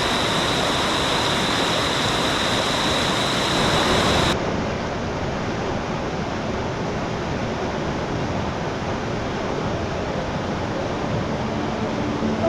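Steady rush of falling mountain water with a faint high tone over it. About four seconds in it cuts to a duller, slightly quieter take of the same water noise.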